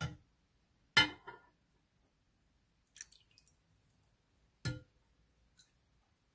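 A metal ladle clinks and knocks a few separate times as cinnamon punch is ladled into a glass bowl; the loudest knock, about a second in, rings briefly.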